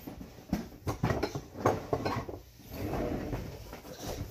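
Kitchen handling noise: a quick series of sharp knocks and clicks as things are moved about in the first two seconds, then softer rustling and shuffling.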